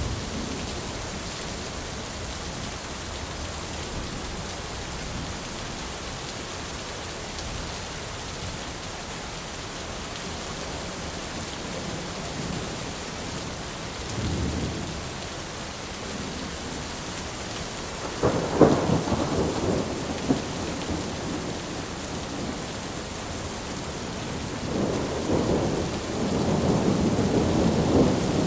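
Steady rain hissing with thunder: a short low rumble about halfway through, then a sharp crack of thunder that rolls on for a couple of seconds, and a long rolling rumble building near the end.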